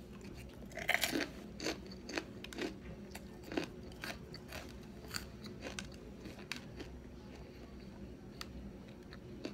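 Crisp crunching bites and chewing of a fried wonton, close to the microphone. The loudest crunches come about a second in, then the crunches come about twice a second and thin out over the next several seconds.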